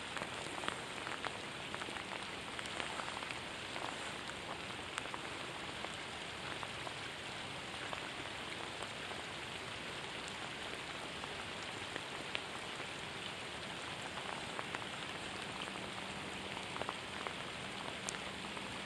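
Steady rain falling on open water, with scattered sharper drop ticks.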